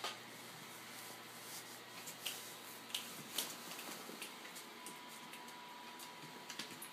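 Faint, scattered light clicks and rustling as a pit bull moves about on a hardwood floor and is petted, with a few sharper clicks a couple of seconds in.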